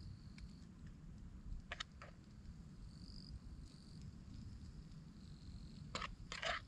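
Insects trilling in short spells, with a metal fork clicking against a small nonstick camping frying pan: a few clicks about two seconds in and a louder run of clinks near the end.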